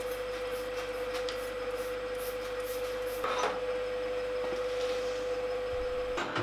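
Elliott 10M shaping machine running while planing cast iron with a carbide-tipped tool: a steady hum with a held whine, and one brief scrape of a cutting stroke about halfway through.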